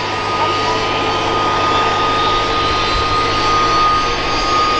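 Boeing CH-47F Chinook helicopter running with its rotors turning: its twin Honeywell T55-GA-714A turboshaft engines give a steady high whine over a dense, even rush of noise.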